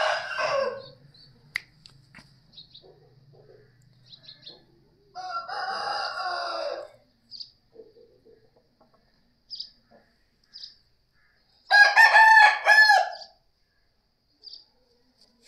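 Aseel roosters crowing three times: a crow trailing off in the first second, a steady crow of nearly two seconds about five seconds in, and the loudest crow about twelve seconds in, falling in pitch at its end.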